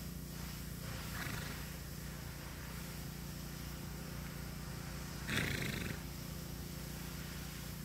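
A horse snorting, blowing a fluttering breath out through its nostrils once, briefly, about five seconds in, after a fainter blow about a second in.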